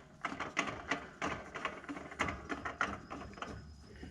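Hands working with small parts and tools: a string of irregular light clicks and knocks with some rustling.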